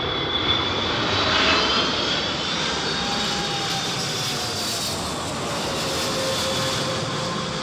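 Boeing 777 airliner passing low overhead on approach, its twin turbofan engines giving a steady rushing roar with whining tones that slowly fall in pitch, loudest about a second and a half in.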